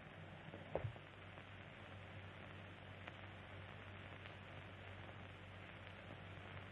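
Faint steady hiss and low mains-like hum of an old film soundtrack, with a small click about a second in.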